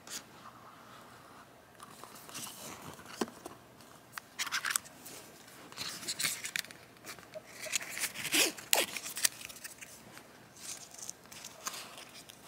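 Irregular small clicks, crinkles and rustles of things being handled close by, with a busier cluster of sharp clicks in the middle.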